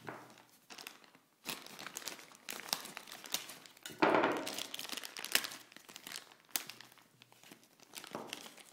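Clear plastic bag crinkling and rustling in irregular crackles as hands handle it and work the antenna out of it, loudest about four seconds in.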